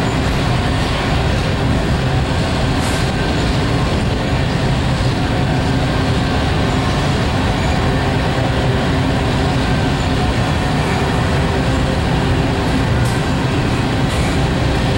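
Covered hopper cars of a slow-moving freight train rolling by: a steady rolling noise of steel wheels on the rails.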